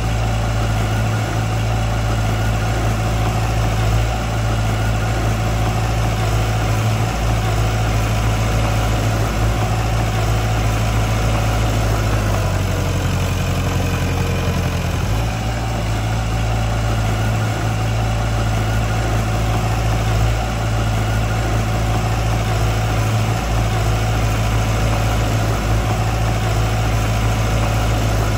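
Heavy-machinery diesel engine running steadily, its low note shifting for a couple of seconds about twelve seconds in before settling back.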